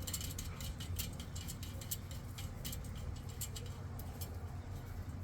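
Box fan fitted with a bicycle rim in place of its blades, coasting to a stop because its low-speed setting does not work: a low hum with irregular light ticks and clicks that grow sparser as the rim slows.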